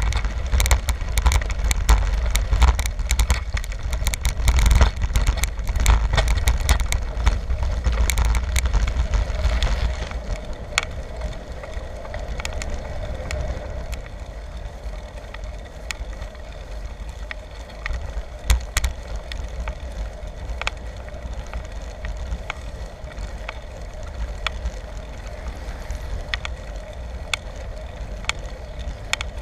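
A bicycle being ridden, with rattling clicks and heavy wind rumble on the microphone for about the first ten seconds. Then it quietens to a steady rolling hum with occasional ticks.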